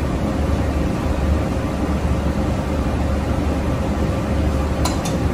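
Steady low background hum with a faint constant tone in it, and two short clicks near the end.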